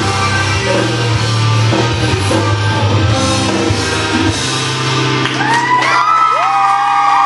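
Rock music with singing and a steady bass line; the bass drops out about five seconds in, and several audience members let out long, high whoops that overlap as the song ends.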